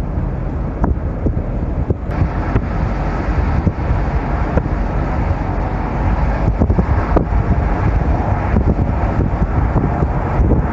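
Car driving along a road: a steady low rumble of engine and tyre noise mixed with wind, with a few faint ticks.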